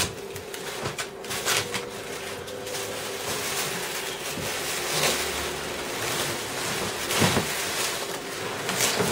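TV packaging being handled during unboxing: irregular rustling of plastic and cardboard with a few knocks, over a steady low hum.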